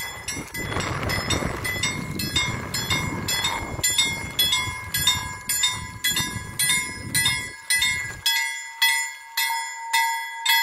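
Railway level crossing warning bell ringing steadily, about two strikes a second. A low rumbling noise lies under it and stops about eight seconds in.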